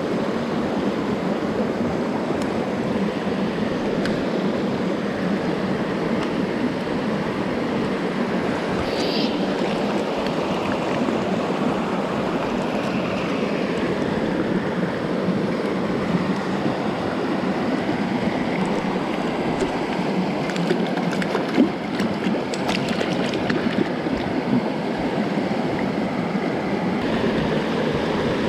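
Mountain stream water rushing steadily, with a few small clicks and knocks in the last third.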